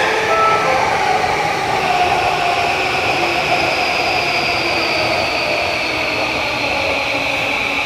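JR E233-1000 series electric commuter train pulling away from the platform, its traction motors and inverter giving a steady electric whine over the rumble of the cars.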